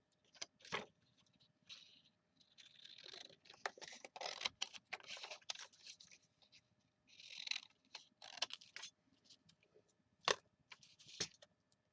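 Paper and cardstock being handled at a craft table: faint, irregular rustling and scraping swishes with scattered sharp clicks.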